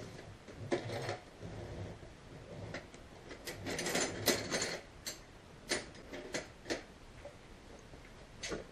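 Irregular clinks and rattles of small metal tools being rummaged through in search of an Allen key, in several short bursts.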